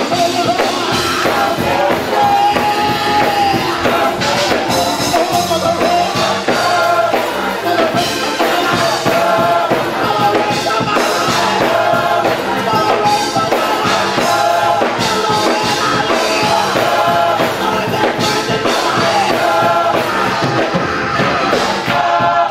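Gospel choir singing with a male lead vocalist on a microphone, over an instrumental accompaniment with a steady beat.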